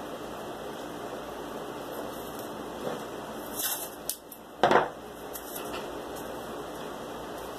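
Masking tape pulled off the roll and torn, with a few short crackles and one loud brief rip about four and a half seconds in, over a steady background hiss.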